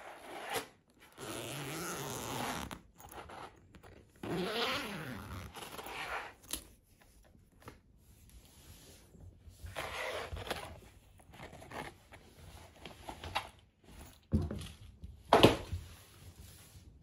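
Zipper of a soft-sided fabric pet carrier being pulled open in two long runs, each with a rising zipping sound. Later come softer rustles and one sharp knock about fifteen seconds in, the loudest sound.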